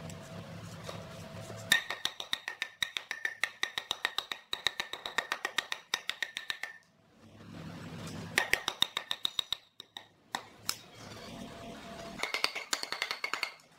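Hatchet chopping and peeling the bark off a round log in quick runs of short, ringing strikes, about six a second, with pauses between the runs.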